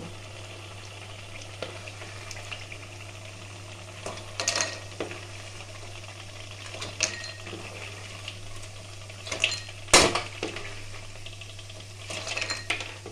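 Wooden spatula scraping and knocking against a kadai as fried bori (lentil dumplings) are lifted out of hot mustard oil, over a faint sizzle and a steady low hum. The knocks come every second or two, the loudest about ten seconds in, with a quick run of scrapes near the end.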